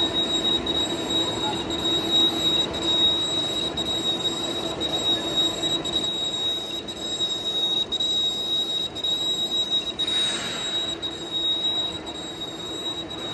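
Golden heavy engine lathe running with its large chuck spinning freely, not cutting: a steady high-pitched whine from the headstock over a mechanical hum. A brief hiss comes and goes about ten seconds in.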